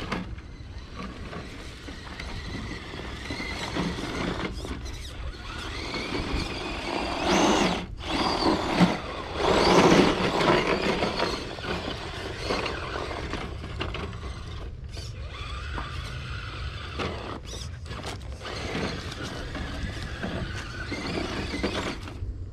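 Electric motor and gearbox of an RC crawler truck whining steadily as it climbs a dirt trail, the whine wavering with the throttle. It gets louder in bursts about seven to eleven seconds in.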